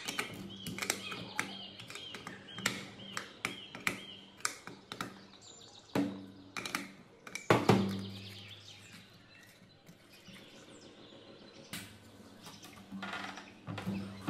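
Metal clinks and knocks of hand tools on a rusty electric water pump's housing and fittings, with one louder knock about seven and a half seconds in. Birds chirp in the background.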